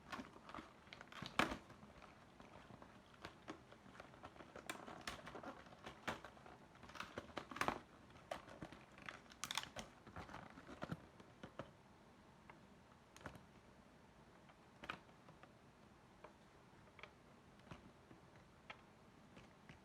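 Faint, irregular clicks and taps, as of small objects being handled. They come thickly for the first ten seconds or so, then thin out to an occasional click.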